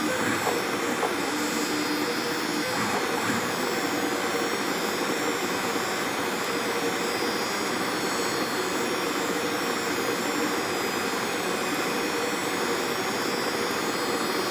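Steady whirring of a SeeMeCNC Eris 3D printer running, its cooling fans giving an even hum with a few faint steady tones over it.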